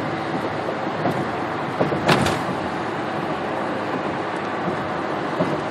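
Steady tyre and engine noise inside a car's cabin while driving at highway speed, with one brief knock about two seconds in.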